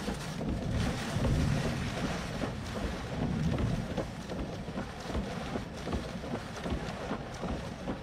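Strong, gusting wind buffeting the vehicle and the microphone, with heavier rumbling gusts about a second in and again about three and a half seconds in, and scattered ticks and knocks.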